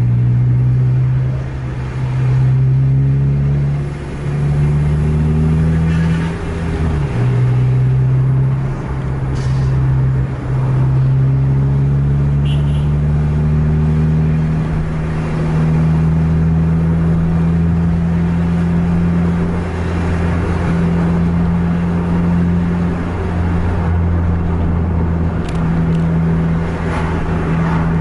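A road vehicle's engine running hard at speed. Its pitch climbs and drops back several times in the first ten seconds as it shifts through the gears, then it runs steadily.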